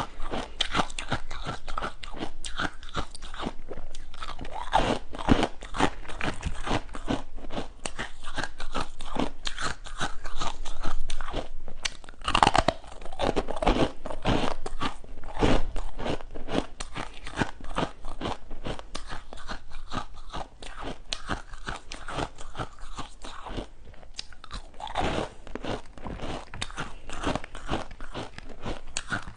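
Close-miked biting and chewing of flavoured ice: a continuous run of dense, crackling crunches, loudest a little under halfway through.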